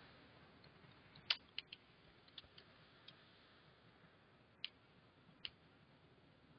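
Faint, scattered clicks of a computer keyboard and mouse, about eight in all, unevenly spaced over near silence, the sharpest about a second in.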